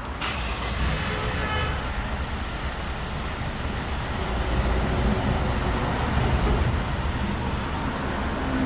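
Hyundai Porter truck's engine idling steadily after a remote start.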